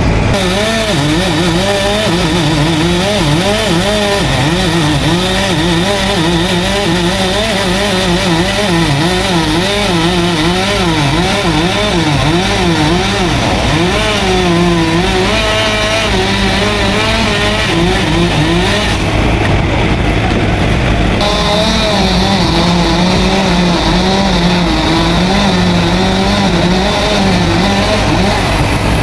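Two-stroke chainsaw running at high speed while cutting, its engine pitch wavering up and down continuously as the load on the chain changes.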